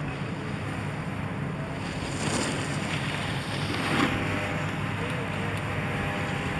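Steady rushing wind noise on the microphone, swelling louder about two seconds in and again about four seconds in.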